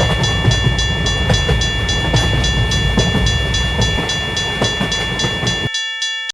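Railway level-crossing warning bell ringing in a steady rhythm, about three strikes a second, over a passing train's low rumble and wheel clatter. The train sound stops suddenly near the end, leaving the bell alone for a moment before everything cuts off.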